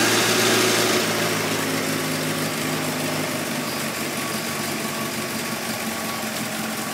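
Facel Vega Facellia's 1.6-litre twin-cam four-cylinder engine running on a test bench, freshly rebuilt after a bottom-end overhaul. It runs steadily and eases off slightly after the first second or so.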